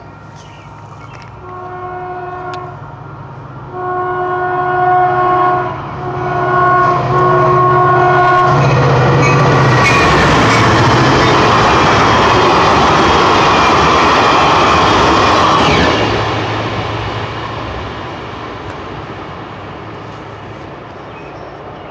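Caltrain diesel passenger train sounding its multi-note air horn in four blasts, long, long, short, long: the standard signal for a grade crossing. The train then passes close by with a loud rush of engine and wheel-on-rail noise, fading away over the last few seconds.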